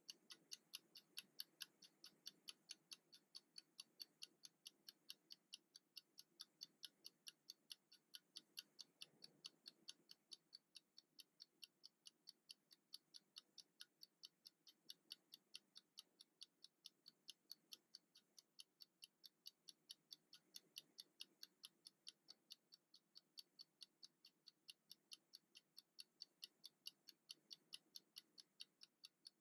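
Faint, rapid, perfectly even ticking of a mechanical wind-up kitchen timer, its clockwork escapement running as it counts down.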